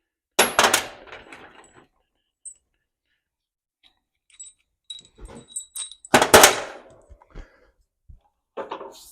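Loose steel nuts and washers clattering as they are rummaged through and dropped in a hardware bin. There are two loud clatters, one about half a second in and one about six seconds in, with lighter clinks between.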